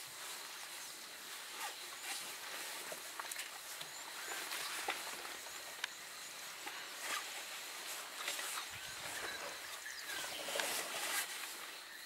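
Quiet bush ambience: a steady high insect buzz with scattered soft rustles and snaps, as a herd of African elephants moves through long grass.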